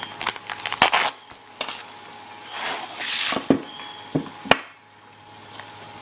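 Handling noise: a gloved hand rubbing close to the microphone, with fabric rustling and a quick run of clicks, then a few sharp knocks, the loudest about four and a half seconds in, as a folding multi-tool is set down on the table.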